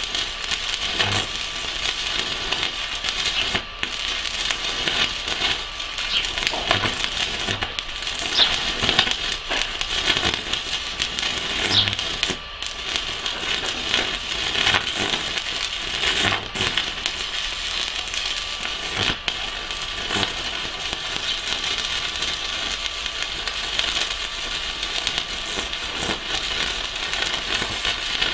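Stick (MMA) arc welding with a Pocweld MMA 200 mini inverter, a 4 mm electrode at 200 A: a steady crackle and sizzle of the arc and spatter, broken by a few very short gaps. The inverter is holding the arc under this heavy continuous load without cutting out into thermal protection.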